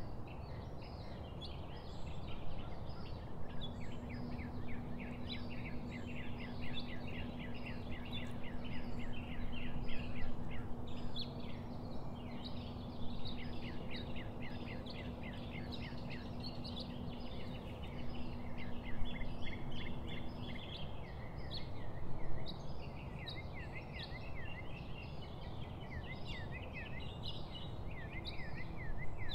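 Many small birds chirping and twittering continuously over a steady background hiss, with a low steady hum that stops about two-thirds of the way through.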